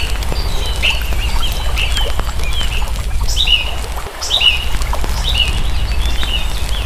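Birds calling repeatedly outdoors, a few short, sharply falling chirps a second, over a steady low rumble and scattered faint clicks.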